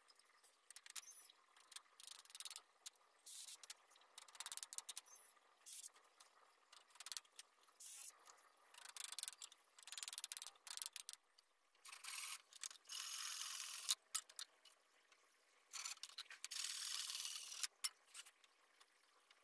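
Irregular scraping and rubbing on bamboo as a bamboo rack is worked by hand: short scratchy strokes, with two longer steady scrapes of about two seconds each in the second half.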